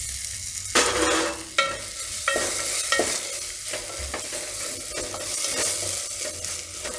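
Wooden spatula stirring and scraping peanuts, ginger and sesame seeds through hot oil in a deep metal pot, over a steady sizzle of frying. About four sharp knocks of the spatula against the pot ring out briefly in the first three seconds. This is the tempering stage, with the sesame seeds just added.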